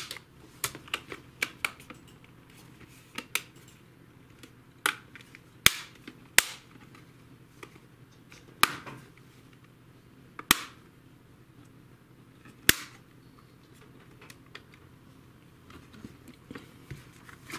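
Plastic display bezel of a Samsung R530/R540 laptop being pressed onto the screen lid, its latches snapping into place: a series of sharp clicks at uneven intervals, a few of them much louder than the rest.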